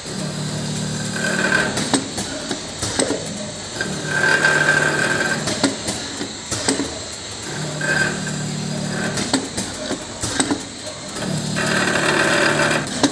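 Automatic powder filling machine running its dosing cycle: a motor hum that starts and stops in repeated bursts of a second or two, with sharp clicks and knocks between the bursts.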